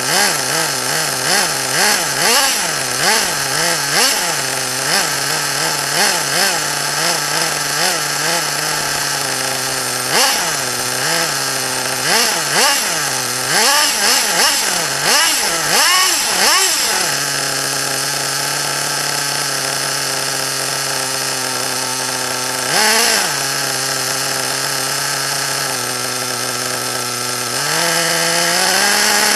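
Small two-stroke nitro engine of an RC buggy, revving up and down in quick blips about once a second, then settling into a steady idle with one short blip and a rising rev near the end.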